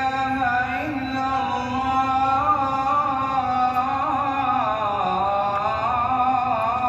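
A solo male voice chanting a slow, ornamented devotional melody in long held notes, the pitch sliding down a little past the middle.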